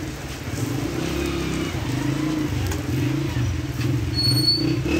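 Street traffic noise: the low, wavering running of vehicle engines, with a short high tone about four seconds in.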